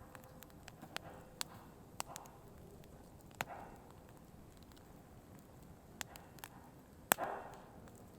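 Burning firewood crackling: irregular sharp pops and snaps, about a dozen, over a low steady background. The loudest pop comes about seven seconds in and is followed by a brief hiss.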